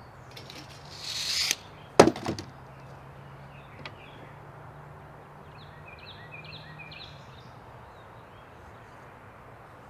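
A short scraping stroke, then a sharp knock and a couple of lighter taps of hand tools handled on a plywood deck while a board is measured and marked. A few faint bird chirps come later over a low steady hum.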